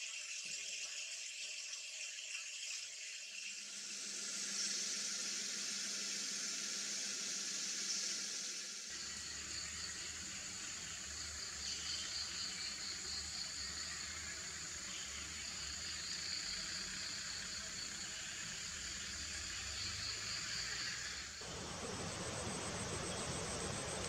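Outdoor nature ambience: a steady high-pitched hiss with rhythmic pulsing chirps. The sound changes abruptly about 4, 9 and 21 seconds in, as the clips change.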